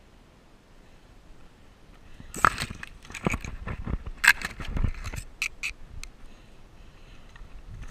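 Dry grass and weed stems crackling and scraping against the camera as the player moves low through brush, an irregular run of crackles and scrapes from about two seconds in until about six seconds in.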